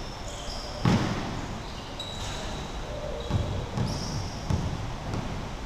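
Basketball game on a hardwood gym floor: a ball bouncing and players' footfalls, with a sharper thud about a second in and short high sneaker squeaks.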